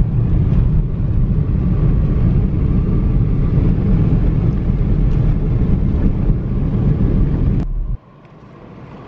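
Steady engine and road rumble heard from inside a moving car. About eight seconds in it cuts off abruptly, replaced by much quieter cabin noise that slowly grows louder.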